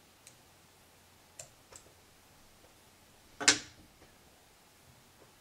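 Small fly-tying scissors snipping hackle fibres on a dry fly: a few faint clicks, then one much louder sharp click with a brief ring about three and a half seconds in.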